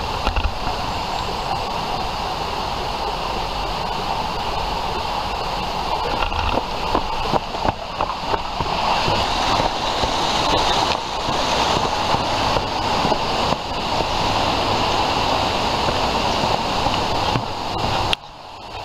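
Steady rush of water from a stream or waterfall in a gorge, with irregular knocks from footsteps and a moving camera, cutting off abruptly near the end.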